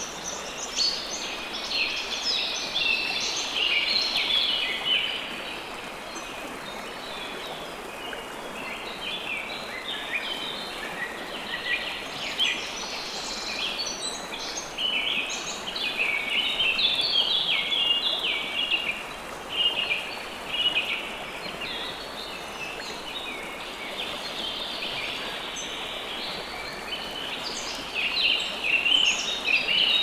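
Many small birds chirping and chattering, their short high calls overlapping without a break, over a steady background hiss.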